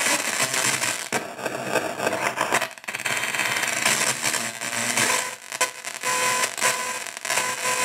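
Cat Full of Ghosts Hell Synth, a palm-sized DIY noise synth running its "From Hell" wavetable-oscillator program, putting out harsh, glitchy digital noise that shifts as its knobs are turned. The noise cuts out briefly several times, and a couple of steady tones come through near the end.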